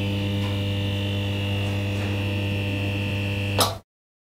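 Electric hum of a neon sign as an intro sound effect: a steady buzzing hum with a thin high whine over it. It ends in a brief crackle about three and a half seconds in and cuts off suddenly.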